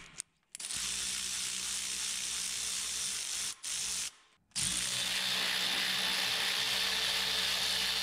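Power tool driving a 14 mm socket, spinning bolts out of the alternator bracket: a steady motor run of about three seconds, a brief stop with a short blip, then a second steady run through the rest.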